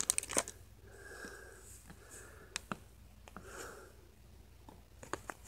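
Quiet handling of freshly unwrapped trading cards: a few small clicks and taps as the cards are shifted and fanned in the hands, with a few soft breaths in between.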